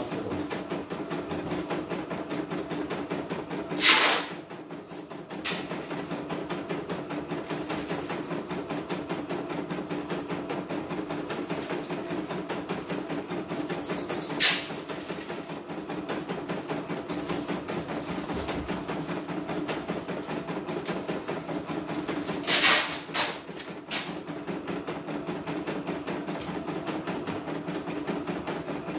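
CNY computerised embroidery machine stitching a test design: a steady, fast run of needle strokes. A few brief, louder noises break in now and then.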